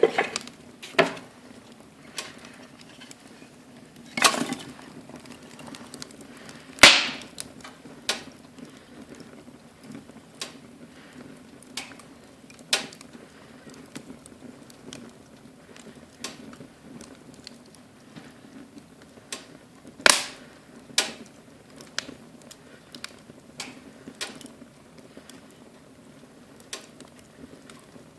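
Wood fire in a fireplace crackling, with irregular sharp pops over a low steady background. The loudest pops come about four, seven and twenty seconds in.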